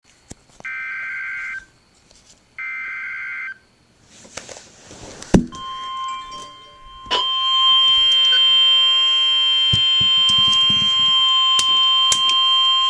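Emergency Alert System activation: two data-burst header tones, each about a second long, then a rustle and a sharp click. About seven seconds in, the long, steady attention tone of the alert begins.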